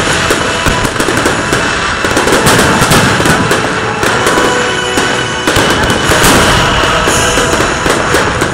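Aerial fireworks bursting in quick succession: a dense run of sharp bangs and crackling, loud throughout.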